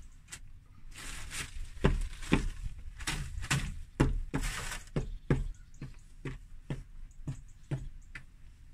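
Footsteps crunching through deep snow, a steady walking rhythm of about two heavy thuds a second with crunchy scraping in between.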